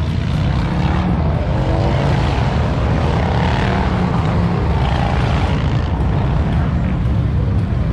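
Motorcycle engines running close by: a loud, steady low rumble, with the pitch of an engine rising briefly a second or two in.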